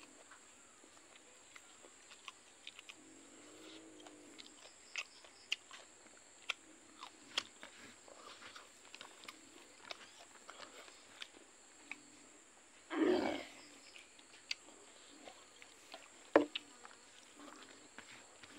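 A person eating cooked silkworms and rice by hand, heard close up as scattered mouth clicks and chewing sounds. A short low hum comes about four seconds in, and a single loud half-second burst about thirteen seconds in.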